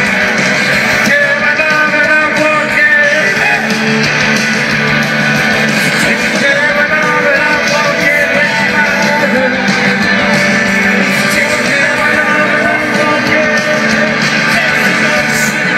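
Live rock band playing loudly, with electric guitars carrying a dense, steady wall of sound, recorded from within the audience.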